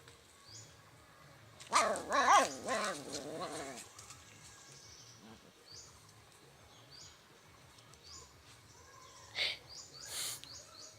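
A dog growling and barking in two bursts: a loud, wavering run about two seconds in and a shorter one near the end.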